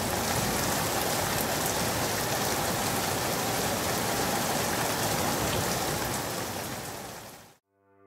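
Steady rain, fading away over the last couple of seconds.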